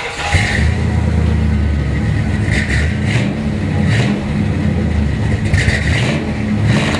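A 1965 Chevrolet Impala SS 396's 396 cubic-inch Mark IV big-block V8 running through its dual exhaust with a big-block rumble. It is revved in several short blips.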